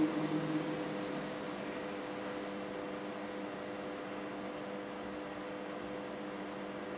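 Steady room tone: an even hiss with a low, constant hum of a few pitches, like a fan or air conditioner running. The tail of a sung chant dies away in the first second.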